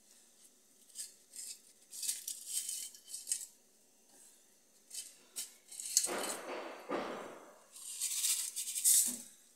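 Dry instant noodle blocks being snapped by hand and rattling in a steel bowl and pot: crisp crackling in several short bursts, the loudest and fullest about six to seven seconds in.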